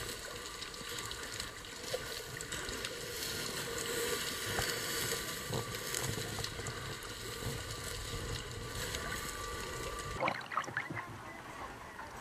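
Steady underwater hiss and faint crackling picked up by a camera held below the sea surface. About ten seconds in, the camera breaks the surface with a short splash of water.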